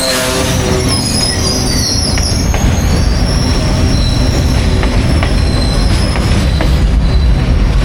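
A train running on the rails: a loud steady rumble, with high, shifting wheel squeal in the first two seconds or so and a few sharp clicks scattered through.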